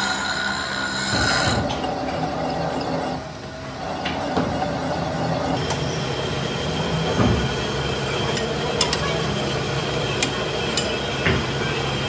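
Metal lathe cutting a cast yoke for a tractor PTO shaft: the tool squeals with a high ringing note for about the first second and a half, then the machine runs on with a steady hum and rattle. Several sharp metal clinks come in the second half.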